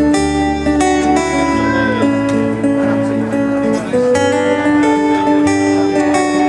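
Live acoustic guitar music, an instrumental passage between sung lines, with notes changing every half second or so over a low bass line.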